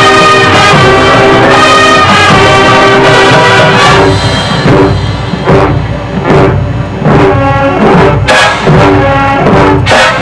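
High school marching band playing live, brass to the fore: held brass chords for about four seconds, then short accented brass-and-percussion hits.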